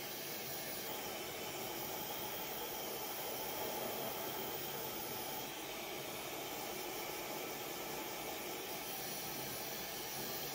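Hand-held hair dryer running steadily, an even rush of blown air that drops slightly about five and a half seconds in.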